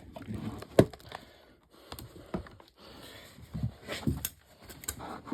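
Irregular sharp knocks and scrapes, with a loud knock about a second in and several more near the end.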